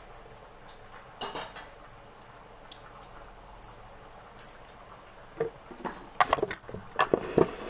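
Stainless-steel kitchen dishes and utensils clattering as they are handled: one clank about a second in, then a quick run of metallic clinks and knocks near the end.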